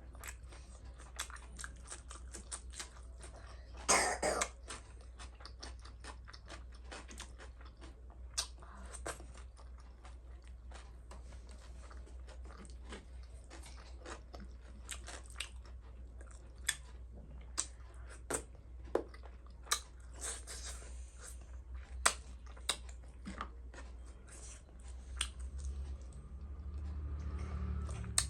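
Person chewing and eating close to the microphone: many short wet mouth clicks and crunches, with one louder burst about four seconds in, over a steady low hum.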